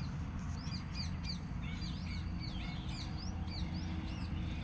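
Birds chirping in quick, repeated short calls over a low steady rumble.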